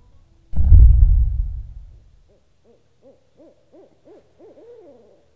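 A sudden deep boom that fades out over about a second and a half, followed by a run of about eight short hoots, each rising then falling in pitch, coming a little faster toward the end, the last one longer and sliding down.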